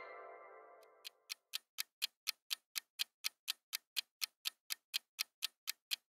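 The tail of a bright chime sound effect fades out, then a countdown timer's clock-tick sound effect starts about a second in and ticks steadily, about four ticks a second.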